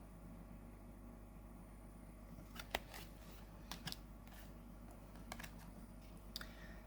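A handful of faint, sharp clicks and taps of oracle cards being handled, moved from one card to the next, starting about two and a half seconds in, over a low steady room hum.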